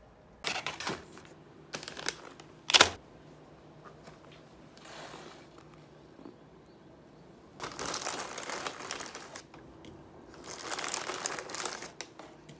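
Clear plastic bag of cereal crinkling and rustling as a hand reaches in and scoops from it, in two stretches in the second half. Before that come a few knocks of things set down on a counter, the loudest a sharp knock about three seconds in.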